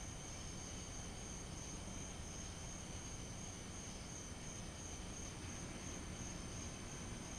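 Crickets chirping in a steady high trill, with a faint low hiss underneath.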